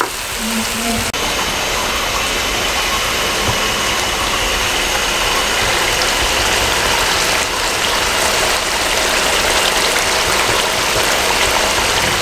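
Beef stew gravy with yoghurt and a layer of oil simmering and sizzling steadily in a karahi over a low gas flame, at the finished stage of cooking.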